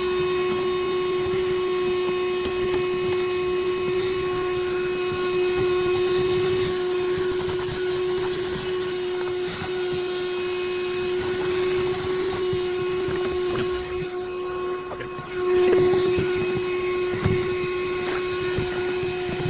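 Hercules cordless handheld vacuum running with a steady high whine while it sucks up dirt and rust. The sound briefly dips about three quarters of the way through, then comes back.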